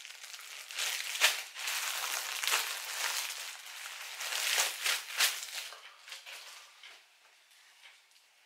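Clear plastic bag crinkling and rustling as a T-shirt is pulled out of it, with several sharp crackles between about one and five seconds in, then only faint fabric rustling.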